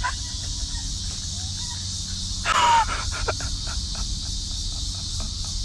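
Steady high-pitched insect buzz of a summer park, with wind rumbling on the microphone. About two and a half seconds in comes a short, loud cry that falls in pitch.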